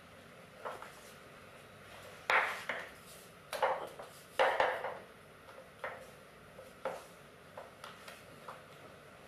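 Small wooden rolling pin rolling and knocking on a wooden tabletop as dumpling wrappers are rolled out. It makes a series of short rolling and tapping sounds, the three loudest between about two and five seconds in.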